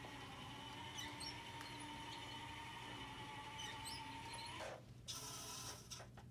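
Small hobby-robot electric motors whining steadily, with faint squeaks, as the robot drives. The whine stops about four and a half seconds in. A short whirring, rattling burst follows about a second later.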